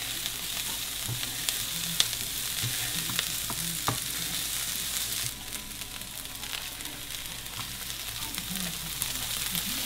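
Green onions frying in a skillet greased with butter-flavoured cooking spray: a steady sizzle with scattered sharp pops.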